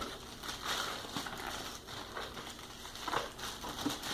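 Packing material crinkling and rustling in irregular bursts as hands dig through a box during unpacking.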